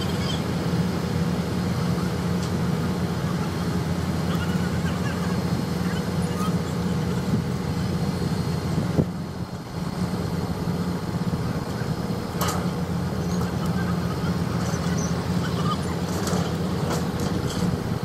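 Heavy diesel engine of a mobile crane running steadily under load while it holds a precast concrete bridge beam, with a sharp knock about nine seconds in.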